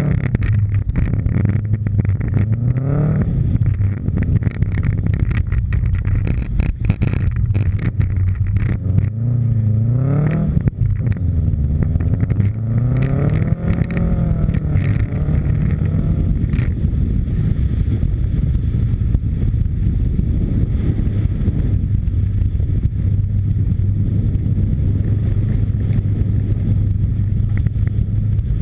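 Subaru Impreza WRX STI rally car's turbocharged flat-four engine driven hard on snow: the revs climb and drop several times in the first half, then hold at a steady drone for the rest.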